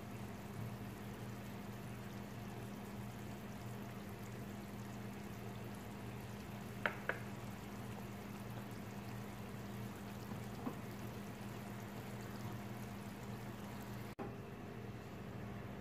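Chili garlic oil simmering in a frying pan, a steady soft bubbling sizzle with a low steady hum under it. Two sharp clicks come about seven seconds in.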